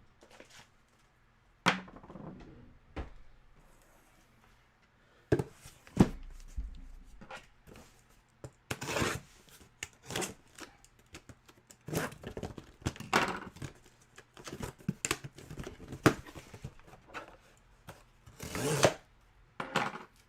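A cardboard mystery box being opened and its packaging handled. There are irregular knocks and thunks, with several longer bursts of tearing or rustling, the longest near the end.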